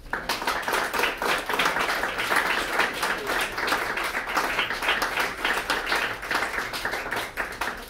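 Audience applauding: many hands clapping at once, starting abruptly.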